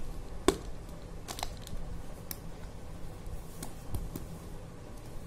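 Handling noise as a neckband earphone and its cable are lifted out of a box's packaging tray: a few sharp clicks and taps, the sharpest about half a second in, over soft low rubbing.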